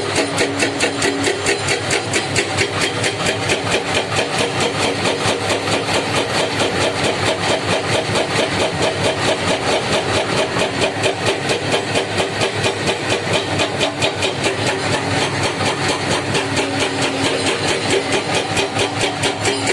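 Heavy diesel engine of earthmoving machinery running steadily with an even, rapid pulsing.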